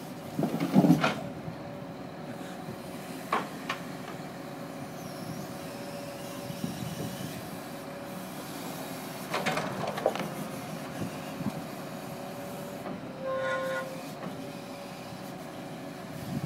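Hydraulic timber crane on a log lorry running with a steady mechanical hum and whine, driven by the truck's engine. Logs knock and clatter as the grab drops them onto the pile, loudest about a second in and again around ten seconds in, and the hydraulics give a short higher whine about three-quarters of the way through.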